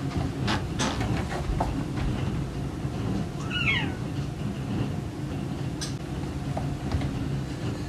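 A domestic cat gives one short meow, rising then falling, a little over three seconds in, over a steady low rumble, with a few light clicks around it.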